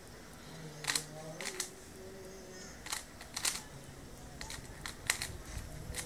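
A 3×3×3 Rubik's cube being turned by hand during a solve: its plastic layers give about a dozen irregular clicks, some in quick pairs.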